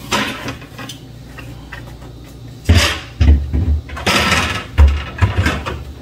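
Plastic interior parts of a Samsung refrigerator being handled and fitted back into place: a quiet stretch, then from a little under three seconds in a run of knocks, scrapes and low thumps as pieces are pushed and slid in.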